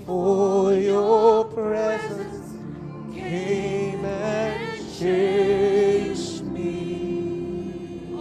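Live gospel worship music: a singer's long, wavering held notes with vibrato over sustained chords. The voice is strongest in the first two seconds and again from about three to six seconds in, and the chords carry on alone near the end.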